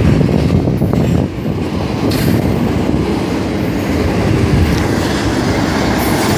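Double-stack container freight train rolling past at close range: a loud, steady rumble of steel wheels on the rails.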